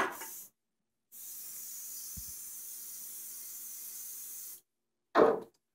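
Compressed air hissing steadily from an air-hose blow gun for about three and a half seconds, blowing debris off a wire-brushed engine part. Two short, loud sounds come right at the start and near the end.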